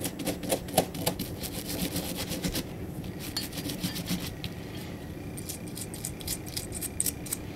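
Toothbrush bristles wet with rubbing alcohol scrubbing a Glock firing pin and its coil spring in quick back-and-forth strokes, easing off for a moment around the middle.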